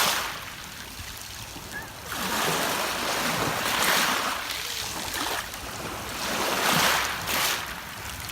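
Sea waves washing up and drawing back over a pebble beach, the hiss of water through the stones swelling twice. A brief sharp click right at the start.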